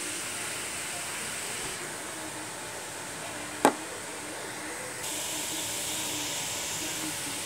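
Steady hiss, with one sharp click a little over halfway through.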